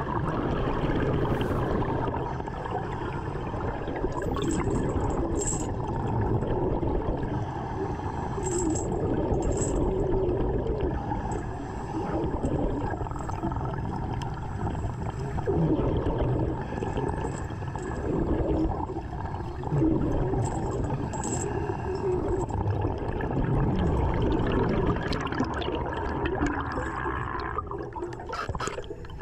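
Water churning and gurgling steadily, with irregular swells.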